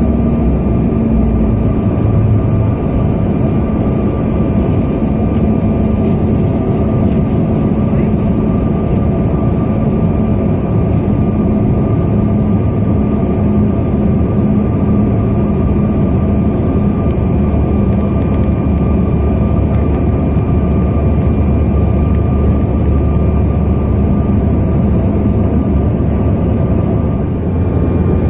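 Jet airliner cabin noise in flight: the steady drone of engines and rushing air, with a faint steady whine on top.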